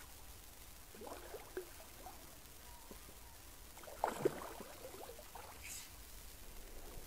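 Faint splashing of a hooked carp thrashing at the water surface: a few short, irregular splashes, the loudest about four seconds in.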